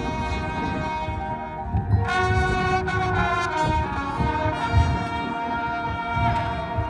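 High school marching band playing, brass sustaining chords over percussion, with a loud new brass entrance about two seconds in.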